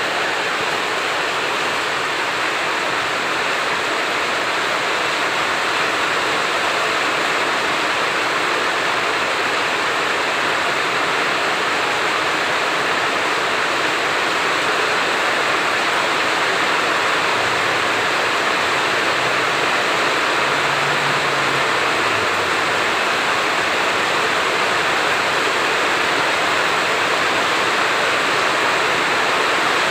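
Heavy rain pouring down steadily, a dense even hiss of water with no break or change.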